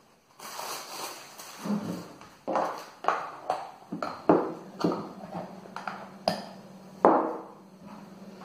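Plastic dough scraper scraping and knocking against a glass mixing bowl while tortilla dough is mixed: a run of quick strokes, roughly two a second, each ringing briefly. A steady low hum runs underneath from about two seconds in.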